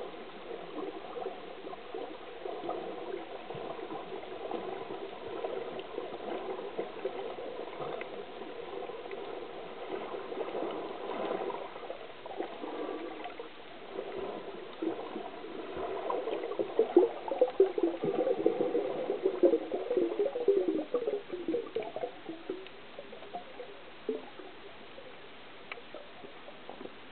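Underwater water noise picked up by a submerged camera: steady gurgling and swishing, getting louder and crackly for several seconds past the middle before settling back.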